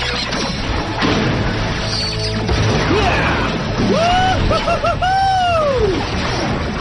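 TV action fight soundtrack: background music under punches, crashes and impact effects, with a run of swooping, arching tones about two-thirds of the way in.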